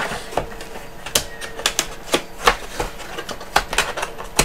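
Cardboard box and its packaging being handled and closed back up: a scattering of irregular sharp taps and clicks.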